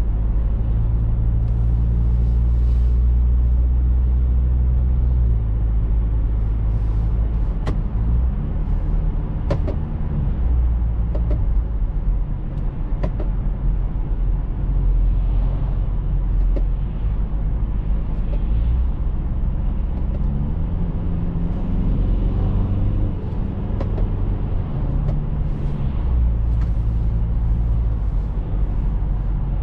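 Cabin sound of a BMW X3 F25 2.0d four-cylinder diesel SUV under way with an automatic gearbox: a steady low engine drone with tyre and road noise. The engine note climbs for a few seconds about two-thirds of the way in, and a few sharp ticks sound now and then.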